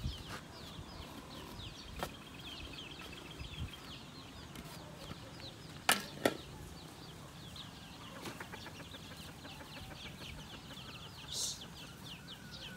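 Chickens peeping and clucking in a steady chorus of quick high calls, broken by a few sharp knocks, two loud ones close together about six seconds in.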